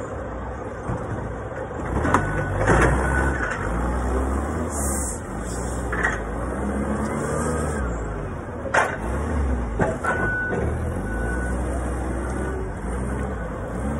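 Forklift engine running and revving up and down as it carries and sets down stacked plastic bins, with several sharp clunks from the forks and bins. A short beep sounds about once a second in two spells, a couple of seconds in and again near the end.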